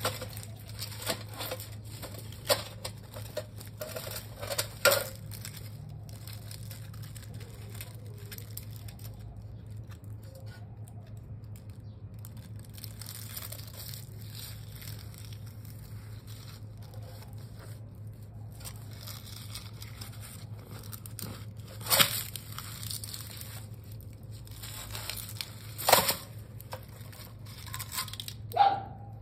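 A tortoise's shell scraping and knocking against a rusty metal stovepipe, with dry leaves crackling and crunching under it as it moves. There are scattered knocks, and the loudest two come in the last third.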